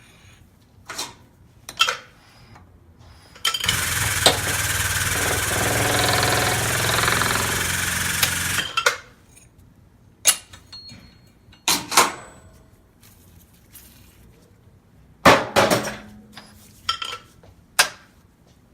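A powered workshop tool runs steadily for about five seconds, set between several sharp metallic knocks and clanks, one of which leaves a brief ringing tone: work on replacing the pulley bearing of an air-conditioning compressor clutch.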